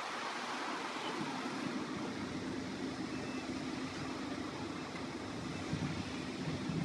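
Road traffic: a motor vehicle running, with a steady hum that sets in about a second in, over constant outdoor background noise.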